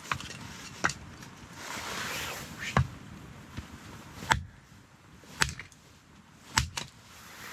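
Axe chopping firewood: about six sharp, separate knocks a second or so apart, with some rustling between them.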